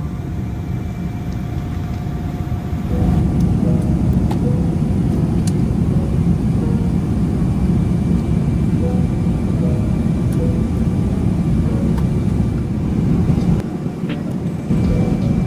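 Steady low jet-airliner rumble from a Boeing 777-300ER, with faint background music. The rumble jumps louder about three seconds in and drops briefly near the end.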